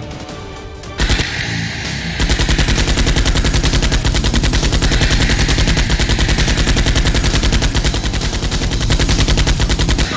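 Machine-gun sound effect: a fast, even stream of shots that starts about two seconds in and keeps going until just before the end, laid over Nerf blaster fire, with a single bang about a second in.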